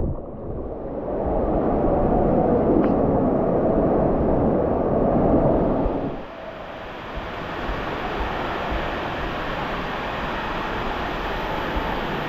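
Rushing water of a water-park slide, a steady wash of noise that changes abruptly about six seconds in to a quieter, hissier one.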